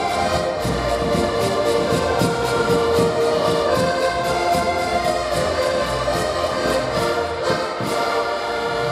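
An ensemble of about ten button accordions playing a traditional tune together: sustained melody and chords over a steady, even beat of bass strokes.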